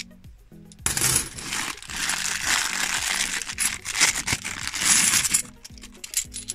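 A handful of bimetallic £2 coins clinking and jingling against each other as they are scooped up and rummaged through, starting about a second in and dying away near the end. Soft background music runs underneath.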